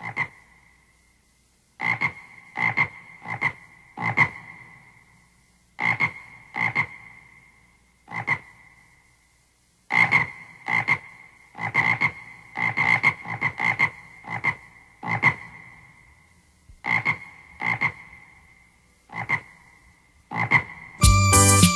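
Electronic keyboard sound-effect voice played as a string of short struck notes, each with a ringing tone that dies away within about a second, in an uneven rhythm with brief pauses between groups. A full music backing comes in near the end.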